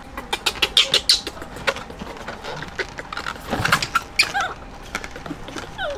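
Baby monkeys scrambling about a plastic basket of water balloons: rustling and clicking, with a few short falling squeaks, the clearest about four seconds in and near the end.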